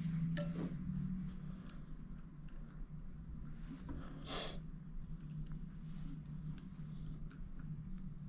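Small metal clicks and clinks of screws and hand tools being picked up and handled on a towel-covered bench, with a brief rustle about four seconds in, over a steady low hum.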